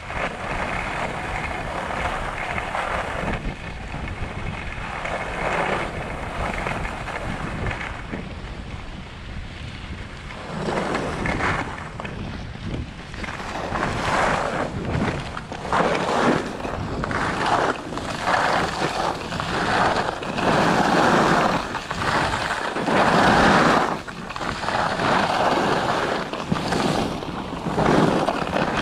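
Skis sliding and scraping on groomed snow during a downhill run, with wind rushing over the microphone. The noise swells and fades over and over, louder and choppier in the second half.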